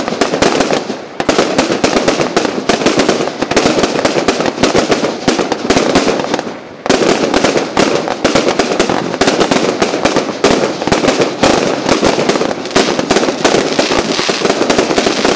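Fireworks display going off: a dense, rapid barrage of bangs and crackles that eases briefly about six seconds in, then comes back just as loud.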